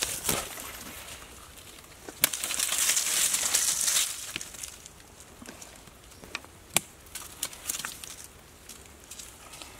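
Rustling and crackling in dry leaf litter as snakes are handled on the forest floor. A sharp snap about two seconds in opens about two seconds of loud, hissy rustling, and a few more sharp clicks and snaps follow later.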